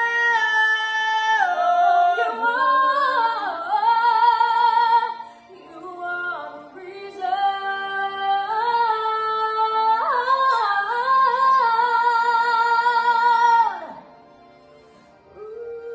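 A man and a woman singing a slow love-song duet in long held notes, the word "reason" drawn out, then wordless wavering runs with the woman singing high. The singing breaks off about fourteen seconds in.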